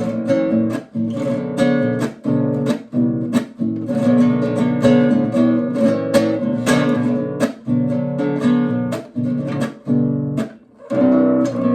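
Acoustic guitar strummed with the thumb and a finger: a rhythmic run of chord strokes, with a brief break near the end.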